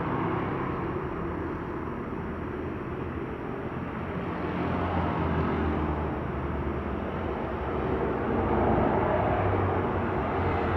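Airliner engines running, a steady rumble with a low hum that swells a little near the end.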